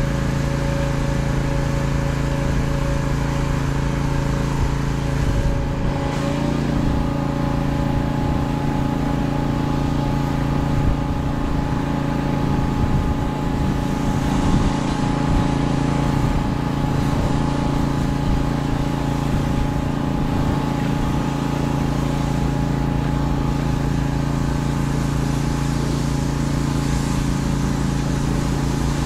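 Pressure washer at work: a small engine runs with a steady drone while water sprays from the wand with a hiss against a semi truck.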